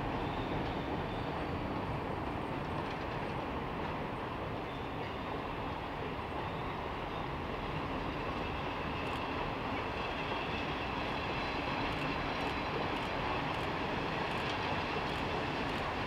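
Passenger railroad coaches rolling across a steel girder bridge: a steady rumble of wheels on rail, with sharp clicks coming in over the second half.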